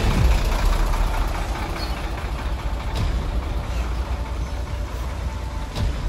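Heavy dump truck's diesel engine running close by, a steady low rumble.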